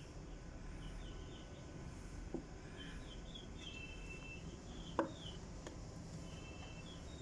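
Steady outdoor background noise with faint, scattered high chirps, and two sharp clicks, one about two and a half seconds in and a louder one about five seconds in.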